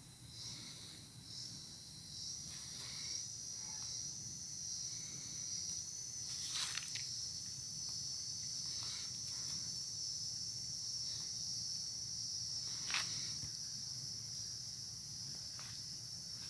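A steady, high-pitched drone of insects in the bamboo forest, with a few faint clicks of footsteps.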